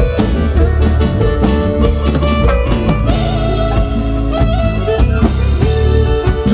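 Live band playing a chilena: electronic keyboards over a drum kit, with snare and bass drum hits.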